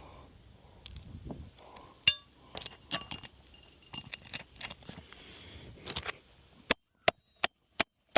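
Hammer striking a roofing nail through a shingle: one ringing metallic blow about two seconds in, some lighter metallic clinks, then four quick sharp taps near the end. The nail is resisting; something beneath the shingle keeps it from going in.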